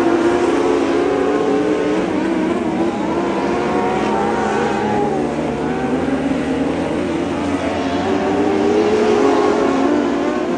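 A pack of dwarf race cars running at speed on a dirt oval, several engine notes overlapping at high revs and rising and falling as the cars go through the turns and down the straights.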